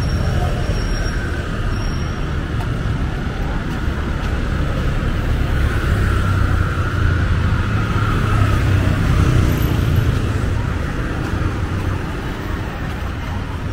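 Steady street traffic noise: a constant low rumble of vehicles with an even hiss above it.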